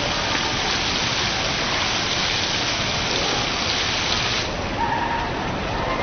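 Falling water from a computer-controlled waterfall display splashing down, a steady rain-like hiss. Its higher part thins abruptly about four and a half seconds in.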